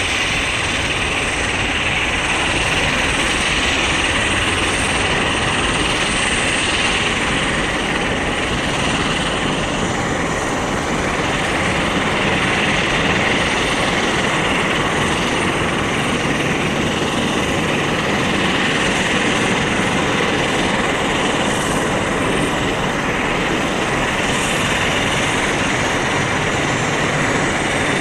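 Steady jet roar from a Boeing 747-400 freighter's four turbofan engines at takeoff power as the aircraft climbs away.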